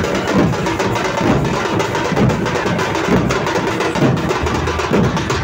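A group of dhol drums beaten with sticks in a fast, steady rhythm, the strokes coming thick and unbroken.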